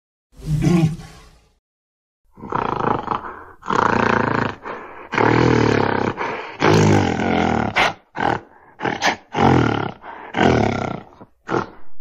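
Ankylosaurus roar sound effect: one short roar, a pause of about a second, then a run of low roars back to back that break into shorter, choppier calls in the last few seconds.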